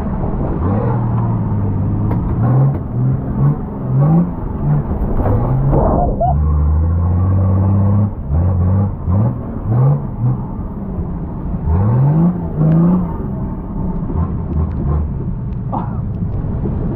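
Off-road 4x4 engine running under load, revving repeatedly in short rising bursts with steadier running between.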